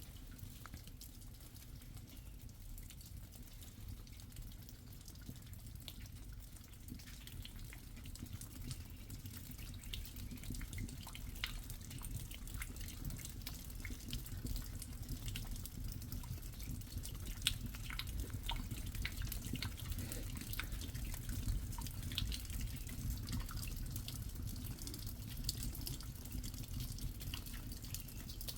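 Water dripping: scattered single drops over a steady low rumble, the drops coming more often as it goes on.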